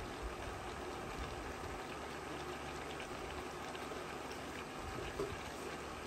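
String beans simmering in adobo sauce in a wok: a steady bubbling hiss with faint scattered pops, and one slightly louder pop about five seconds in.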